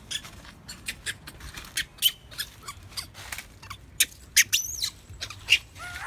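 Baby long-tailed macaque crying: a rapid, irregular string of short, high-pitched squeaks and shrieks, some sliding up and down in pitch, loudest about four to five seconds in. They are the distress cries of a youngster that its mother has refused to nurse and slapped away.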